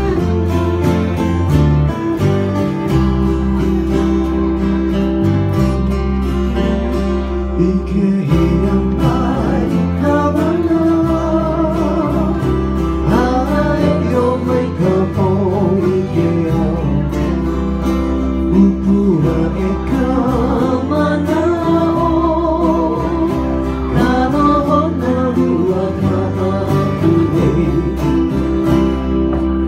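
Live Hawaiian-style band music: acoustic guitar and ukuleles strumming a steady rhythm, with a man singing the melody from about nine seconds in.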